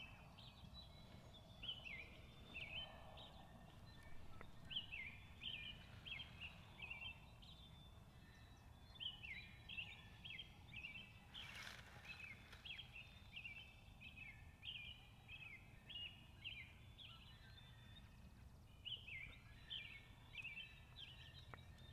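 Faint outdoor ambience of a songbird singing runs of quick falling chirps over a low steady rumble, with a brief soft noise about halfway through.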